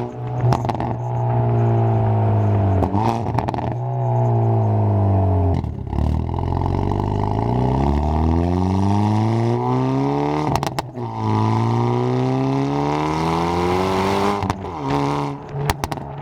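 Hyundai Veloster N's turbocharged 2.0-litre four-cylinder pulling hard through the gears in N mode, exhausting through a catless downpipe. The engine note climbs with the revs and drops back at each upshift, several times over, with short sharp cracks at the shifts.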